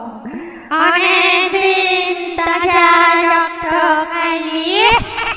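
Ghost sound effect: a high, singing voice-like wail that starts suddenly about a second in, holds one note with a trembling waver, and slides sharply up near the end.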